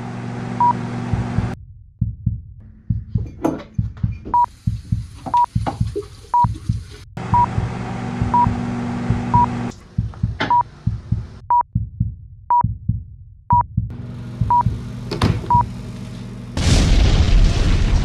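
A countdown timer beeping once a second at one steady pitch. Under it a steady electric hum comes and goes, and between its stretches there are quick, irregular knocks and clatters of handling. About a second before the end a loud explosion breaks in.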